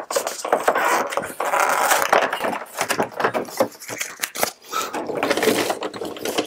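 Plastic blister packaging crinkling and rustling as it is handled, with many small clicks and knocks, while small plastic balls are worked free of it.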